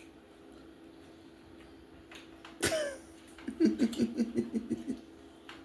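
A person laughing in quick, short pulses for about a second and a half, after a single sharp short noise about two and a half seconds in, over a faint steady hum.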